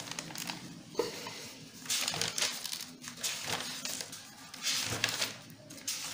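Large sheets of paper rustling and crinkling as pages are flipped back one after another, in several separate swishes.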